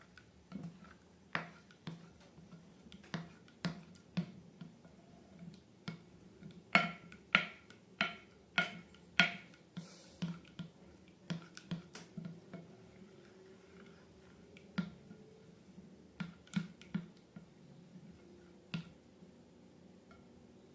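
A series of sharp clicks and taps at irregular intervals, with a louder run of about two a second from about 7 to 9 seconds in.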